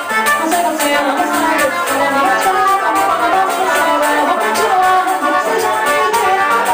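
Live forró band playing with a steady beat: accordion chords over guitar, zabumba drum and hand percussion.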